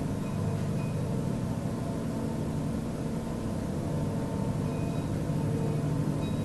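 Steady low droning hum made of several held tones over a rumble, like a distant aircraft that never passes. It is one of the unexplained 'strange sound' recordings, and its source is unknown.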